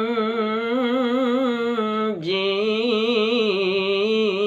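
A single voice chanting Quran recitation in the melodic tilawah style, holding long vowels with wavering, ornamented pitch. It breaks briefly about two seconds in, then takes up the line again.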